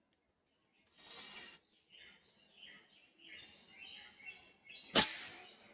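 Birds chirping in a quick series of short calls, after a brief hiss. Near the end comes a single sharp, loud crack like a shot, which rings on briefly.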